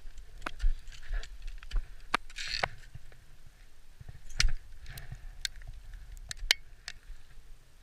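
Ice axe picks and crampons striking and biting into snow-covered ice: irregular sharp knocks, about nine of them, with a short scraping crunch about two and a half seconds in.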